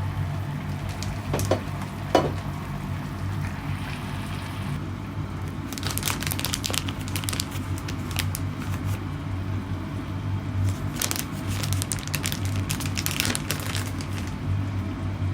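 Rustling and crinkling handling noise, like plastic or paper being crumpled, with two sharp clicks about two seconds in and denser crinkling bursts in the second half, over a steady low hum.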